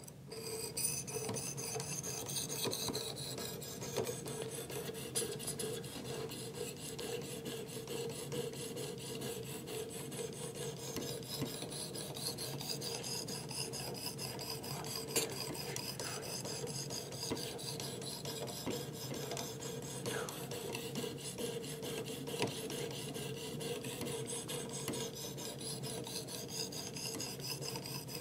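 800-grit abrasive of a Work Sharp Professional Precision Adjust sharpener stroked back and forth along a clamped steel knife edge: steady scraping, starting about half a second in. This is the honing pass that works off the burr on this side of the blade.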